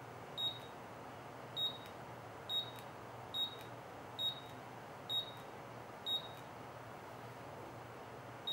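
Keypad beeper of a Signode BXT2 battery strapping tool giving short high beeps, seven in all at roughly one a second, as its mode buttons are pressed to set the mode of operation. A faint steady hum lies underneath.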